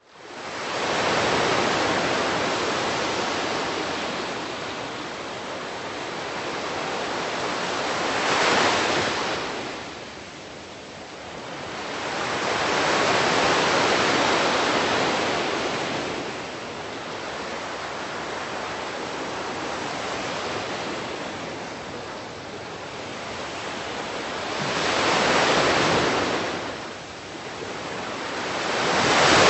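Sea waves gushing in and out of a sea cave: a continuous wash of surf that swells into about five louder surges and ebbs between them.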